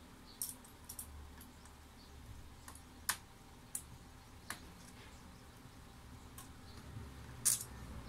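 Small metal screws clicking and ticking as they are picked off the plastic underside of a laptop: about eight sharp, scattered clicks, the loudest near the end.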